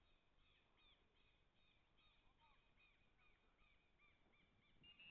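Faint bird calls: a quick run of short, arched chirps, about three a second.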